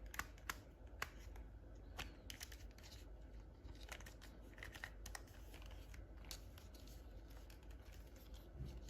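Faint, scattered small clicks and brief crinkling rustles of plastic toy packaging being handled and opened by hand.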